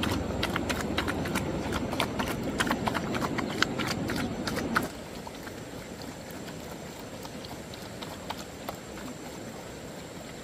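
A rapid, irregular clatter of sharp clicks and knocks over a low rumble, which cuts off suddenly about five seconds in. After that comes a quieter background with a few scattered clicks.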